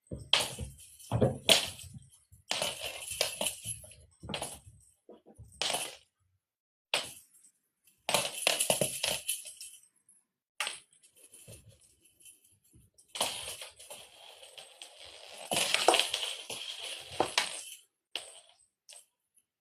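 A cat toy jingling and rattling in irregular bursts as it is batted about, with a longer spell of rattling near the end.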